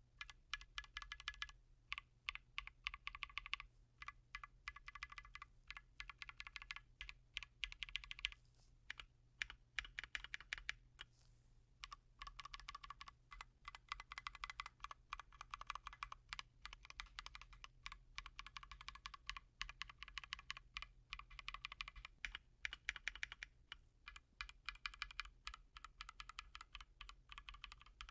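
Typing on a custom mechanical keyboard with Holy Panda tactile switches: fast, irregular keystrokes in runs, broken by a few short pauses, heard faintly.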